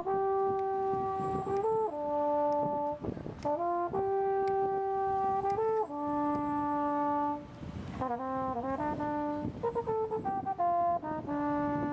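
A horn played solo: a slow melody of long held notes, with a quick run of short notes about two-thirds of the way through.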